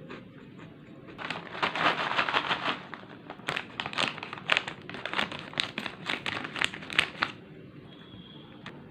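Crinkly chip packet being handled, giving dense sharp crackles in two spells from about a second in until about seven seconds in.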